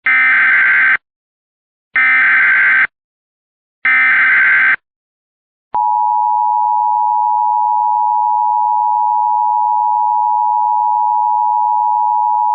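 Emergency Alert System SAME header: three one-second bursts of digital data warble with short gaps between them. About six seconds in, the EAS two-tone attention signal starts and holds steady.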